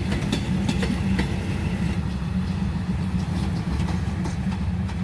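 Diesel railcar train of four or five cars running into a station platform. Its engines give a steady low rumble, and its wheels click over rail joints and points, mostly in the first two seconds and once more near the end.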